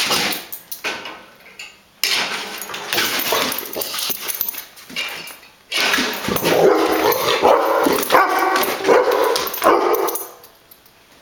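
Dog barking and yipping in several short, pitched outbursts, loudest in the second half, over a steady noisy, rattling sound.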